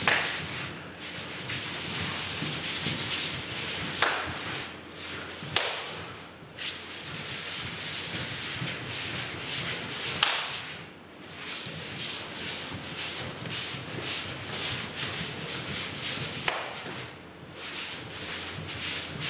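Sumo practice bouts: bare feet scraping and shuffling over the sand-dusted clay ring, broken every few seconds by a sharp slap or thud of bodies colliding, with a short lull after each.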